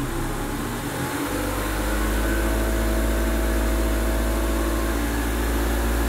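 Mazda 2 Skyactiv four-cylinder petrol engine heard from inside the cabin, running steadily; about a second in its speed picks up and then holds at a higher, steady level.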